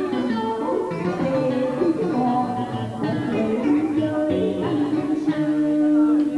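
A woman singing into a microphone over plucked guitar accompaniment, ending on one long held note.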